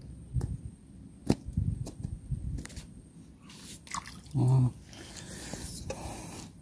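Handling noise on a body-worn camera: a few sharp knocks and clicks, a brief low hum about four and a half seconds in, then cloth rubbing over the microphone near the end.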